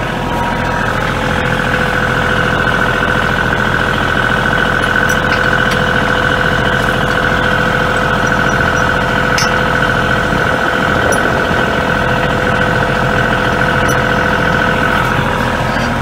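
Kioti compact tractor's diesel engine running steadily, with a steady higher whine over it from about a second in until near the end.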